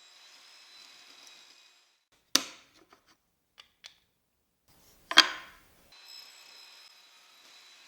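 Two sharp knocks of small wooden workpieces set down or handled on a workbench, about three seconds apart, with a couple of light clicks between them over faint background hiss.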